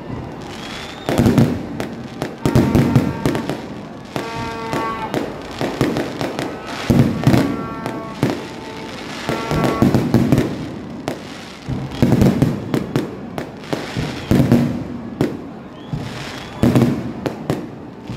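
Aerial firework shells bursting overhead in a steady barrage, a boom about every second or two, each followed by crackling.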